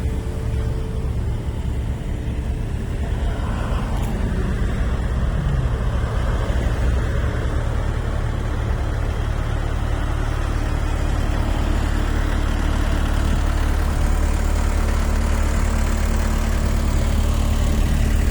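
Engine of heavy road-construction machinery running steadily with a low drone, its pitch falling once about four to six seconds in.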